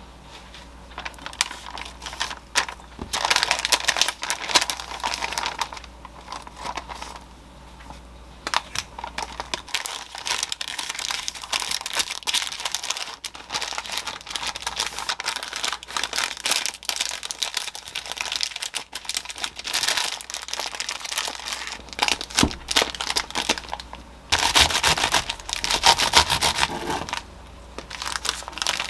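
Parchment paper crinkling and rustling in irregular bursts as it is folded and pressed around a sandwich. A louder, denser stretch of about three seconds comes near the end.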